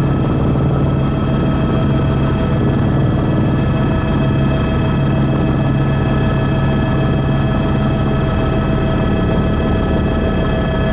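A helicopter in flight, heard from on board: the engine and rotor run as a steady drone, with a strong low hum and several constant whining tones above it.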